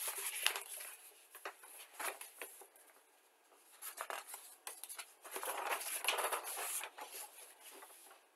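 Large paper instruction sheet being flipped and unfolded by hand, rustling in irregular spells with small crisp clicks and a short lull about three seconds in.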